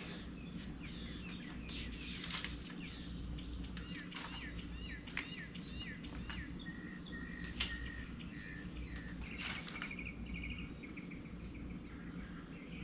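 Birds chirping: a run of quick falling chirps, then a held whistle and a short trill, over a steady low hum. A few light knocks come in between.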